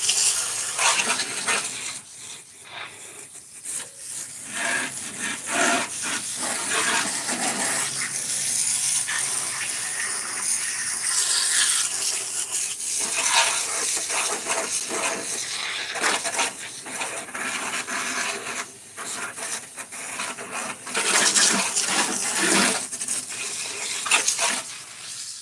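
Water spraying from a pistol-grip garden hose nozzle onto a lawnmower and wet concrete: a hissing, splashing spray that comes and goes as the nozzle is squeezed and re-aimed.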